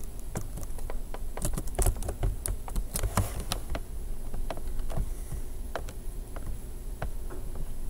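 Typing on a computer keyboard: irregular keystrokes, busiest in the first few seconds, then a few scattered clicks.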